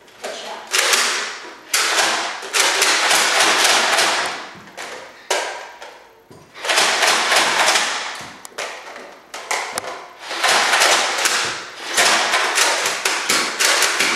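Volleys of rapid-fire shots and thuds in loud bursts of one to three seconds, about half a dozen of them, with short lulls between.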